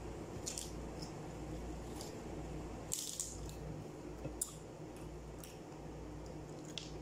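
Close-up eating sounds: wet mouth smacks and chewing, with short clicks as flatbread is torn and eaten, scattered irregularly and loudest about three seconds in. A steady low hum runs underneath.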